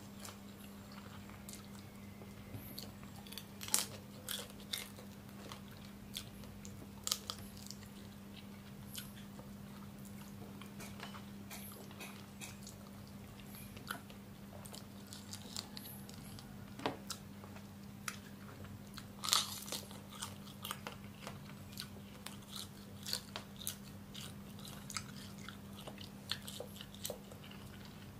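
Close-up crunching and chewing of chilli-cooked rhinoceros beetles, with irregular sharp cracks of the beetles' shells; the loudest cracks come about four, seven and nineteen seconds in. A steady low hum runs underneath.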